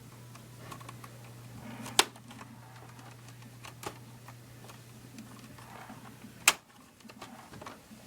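Plastic clicks and snaps as the screen bezel of a Sony VAIO laptop is pried loose: two sharp snaps, about two seconds in and again about six and a half seconds in, with softer clicks between. A steady low hum runs underneath and stops at the second snap.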